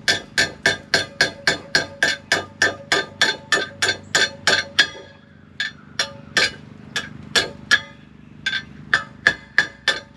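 Blacksmith's hammer striking hot steel on a Hay Budden anvil while forging a hook, about three blows a second, each with a short metallic ring. About five seconds in the blows pause briefly, then resume more sparsely.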